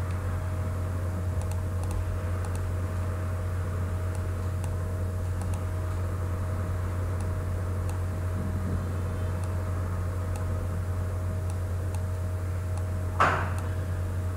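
Steady low electrical hum with a faint, steady higher tone above it. Faint clicks, likely mouse clicks, come now and then, and one short, louder noisy sound comes near the end.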